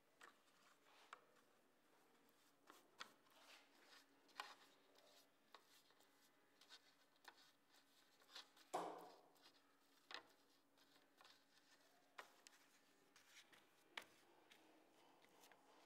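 Faint handling sounds of thin wooden veneer strips being brushed with wood glue, lifted and set down on a wooden workbench: scattered light taps and scrapes, with one louder knock about nine seconds in.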